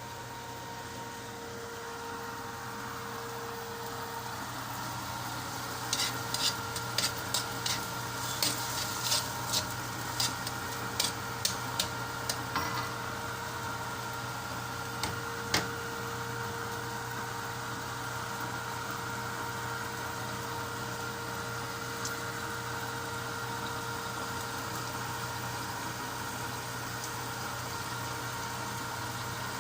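Food sizzling in a frying pan, with a utensil clicking and scraping against the pan in a quick run of strokes from about 6 to 16 seconds in, over a steady low hum.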